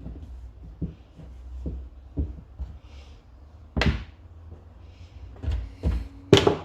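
Handling noises from parts being fitted onto a new motorcycle HT lead: scattered light knocks and clunks, with a louder knock about four seconds in and several more near the end.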